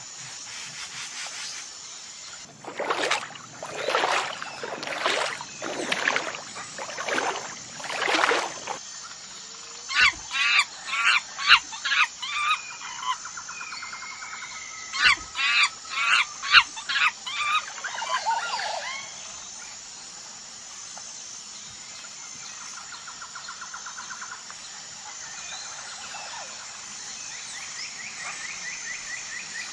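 Animal calls in a natural soundscape: six loud, harsh calls about one a second, then two bouts of quick bird chirping, then quieter trills over a steady high-pitched drone.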